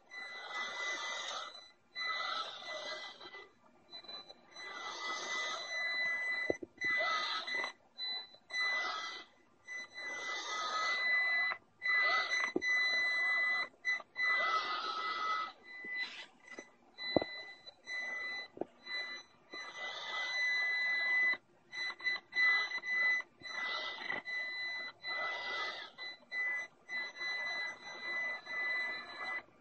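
A vacuum cleaner running and drawing air through a long hose into a homemade robot vacuum. It gives a steady high whine over a rushing hiss, and the sound drops out briefly many times.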